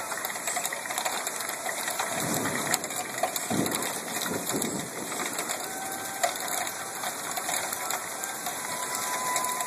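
Hail falling, a dense, steady stream of small clicks and ticks. A low rumble swells between about two and five seconds in.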